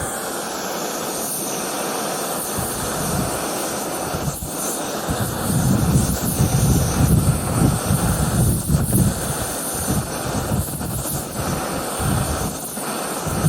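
BRS-3000T isobutane canister stove burning with a steady hissing roar under a titanium pot. From about five seconds in, gusts of wind buffet the microphone with an uneven low rumble.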